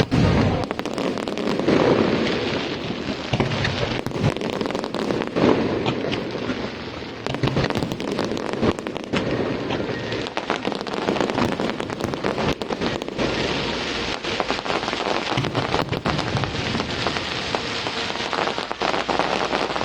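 Aerial fireworks going off: a dense, continuous crackle of many small bursts, with a few heavier bangs standing out in the first several seconds.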